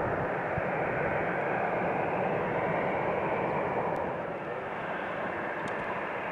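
Jet airliner engines running, a steady rushing noise that eases slightly about four seconds in.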